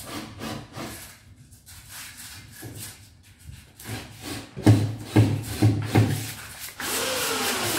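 Quick, rhythmic scraping strokes of a hand tool on a wooden cabinet door, with four loud knocks on the cabinet about five seconds in. Near the end a steady whirring noise starts up.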